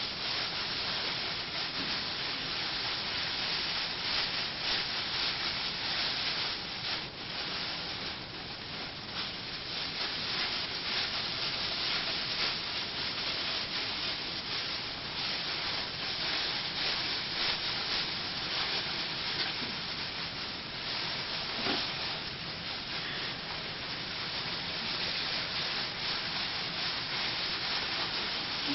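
High-density plastic merchandise bags rustling and crinkling without a break as they are pulled open and fluffed by hand.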